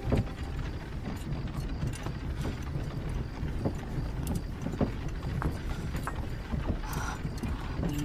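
Soft handling sounds: small scattered clicks and taps with a brief rustle about seven seconds in, over a low steady rumble.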